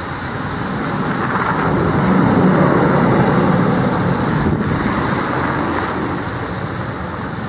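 A vehicle passing on a snow-covered road, its tyres hissing through the snow and slush, swelling as it approaches and fading as it goes by.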